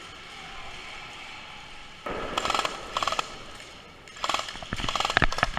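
Airsoft electric gun, likely the M249 SAW, firing on full auto in about four short bursts of rapid gearbox clatter. The first burst starts about two seconds in.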